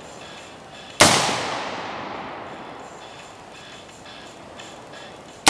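AR-15 rifle with a linear compensator muzzle device firing a single shot about a second in, its report echoing away over a couple of seconds. A second shot goes off at the very end.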